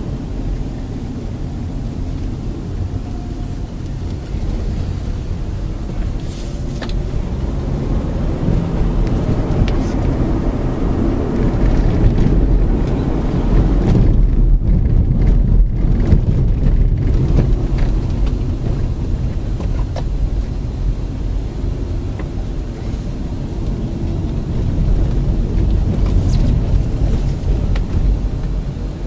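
Honda Accord engine, tyres on the road and wind, heard from inside the moving car's cabin. A steady low rumble that grows louder about halfway through and then eases off again.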